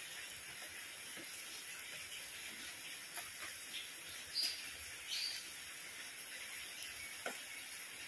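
Steady rain falling on paving and garden plants, an even hiss, with a couple of short bird chirps about halfway through.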